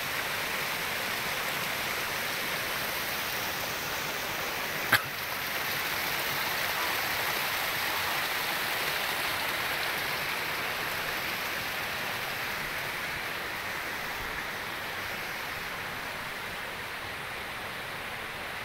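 Steady rush of flowing river water, easing slightly in the second half, with one sharp click about five seconds in.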